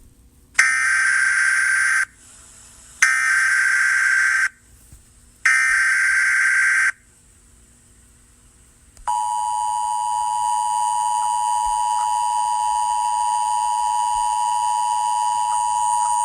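Emergency Alert System tones: three harsh data-burst headers of SAME digital code, about a second apart. About nine seconds in, the steady two-tone EAS attention signal begins and holds. Together they announce a tornado warning.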